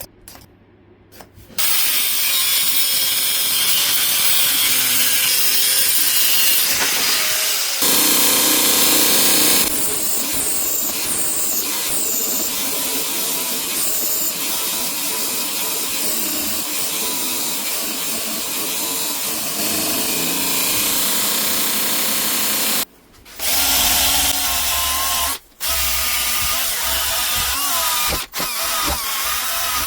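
An electric power tool running steadily under load, then stopped and restarted several times near the end.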